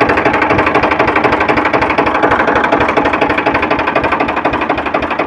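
Powertrac 439 DS tractor's three-cylinder diesel engine running unloaded with a steady, rapid clatter, freshly rebuilt with new pistons, rings, liners and connecting-rod bearings and being run free without load so the new rings bed in. A good, sweet-sounding engine.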